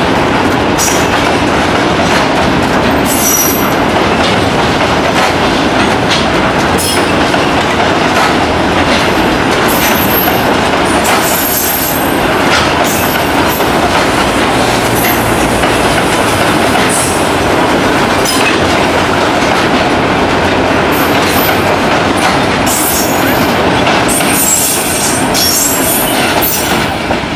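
Freight train of mineral hopper wagons rolling across a steel truss bridge: a loud, continuous clatter and rumble of wheels on rail, with a high wheel squeal breaking through now and then.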